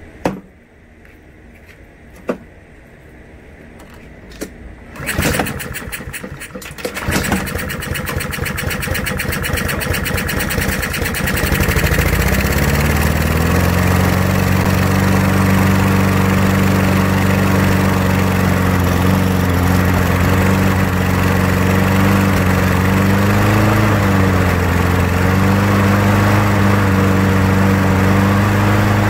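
Honda GCV160 single-cylinder lawnmower engine being started. A few sharp clicks come first, then it catches about five seconds in, picks up speed, and from about twelve seconds in runs steadily with its pitch wavering slightly.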